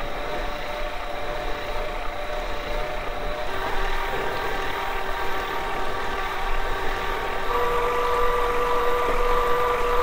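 FAZUA e-bike drive motor running on a test rig at 200 W assist, a steady hum with several whining tones. The tones shift in two steps, about a third and three quarters of the way in, as the pedalling cadence is raised from 60 to 80 to 100 rpm. The drive sounds much quieter, without the high-pitched sawing note of the competing drives.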